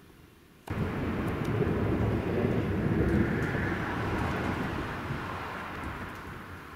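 Thunder from a thunderstorm: a deep rumble that starts suddenly about a second in, swells, then slowly rolls away.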